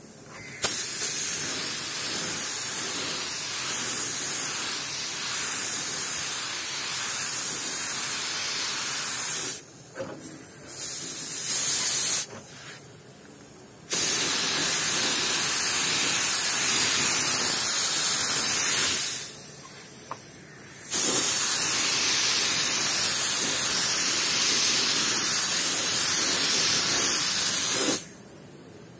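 Compressed-air paint spray gun spraying a clear varnish coat onto a motorcycle fuel tank: a steady hiss in four spells, the second short and the loudest, with pauses of one to two seconds between.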